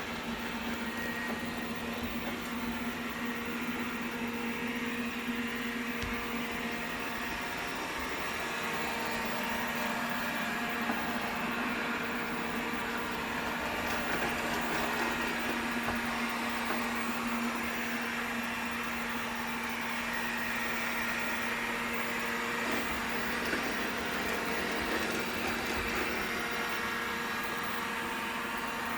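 Vacuum cleaner running with a steady hum.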